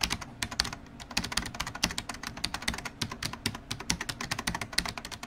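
Computer-keyboard typing sound effect: a rapid, irregular run of key clicks.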